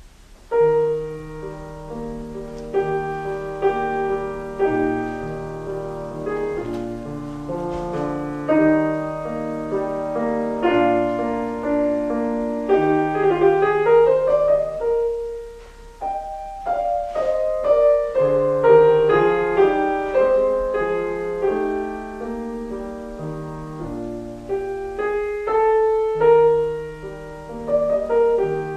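Background piano music: a melody over a slower bass line, starting about half a second in, with a rising run near the middle followed by a brief lull.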